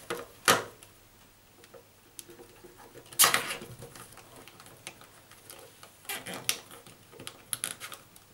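Plastic cable tie being threaded and pulled tight, its ratchet clicking in short runs, with a couple of sharper knocks from handling.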